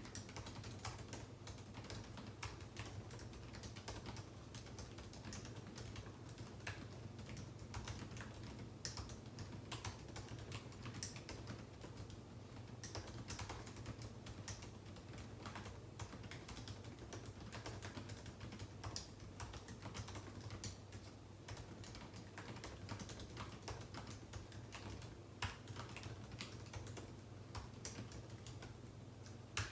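Computer keyboard typing: a continuous, irregular run of keystrokes with short pauses between bursts, over a steady low hum.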